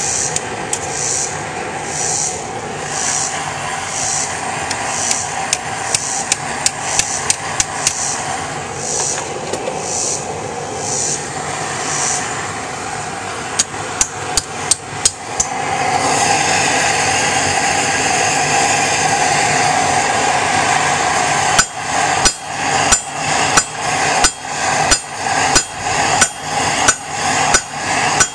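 Hand hammer striking hot steel on a railroad-rail anvil during a forge-welding attempt on folded mild steel with a high-carbon steel shim: a few scattered blows, then from about two-thirds of the way in a steady run of ringing blows, roughly one and a half a second. Under it the gas forge's burner runs with a steady noise.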